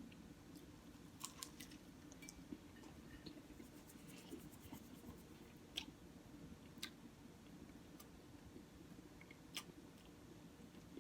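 Quiet close-up chewing of a soft bacon, egg and cheese croissant sandwich, with scattered wet mouth clicks and smacks.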